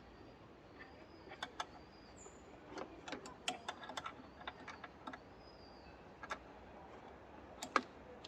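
Scattered light clicks and taps, irregular and faint, from hand tools and parts being handled during work on a car's windshield wiper assembly.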